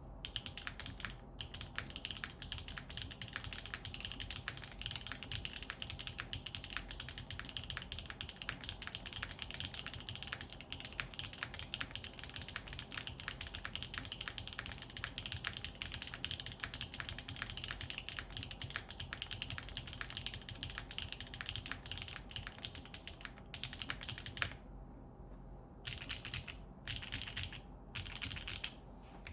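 Fast, continuous typing on a Krush65 mechanical keyboard with an aluminium plate and GMK keycaps, key presses clacking in quick succession. The typing stops for about a second near the end, then resumes in short bursts.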